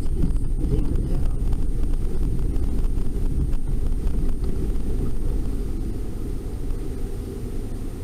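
Low, steady rumble of a car's engine and tyres as heard inside the moving taxi cab, easing slightly near the end.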